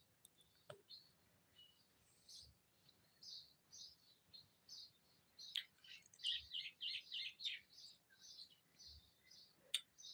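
Small birds chirping faintly, short high chirps throughout with a quick run of them about six seconds in. A sharp click near the end.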